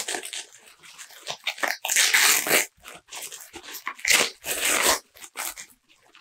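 Plastic packaging being handled and pulled off a book, crinkling and crackling in irregular bursts that are loudest about two seconds in and again around four seconds in.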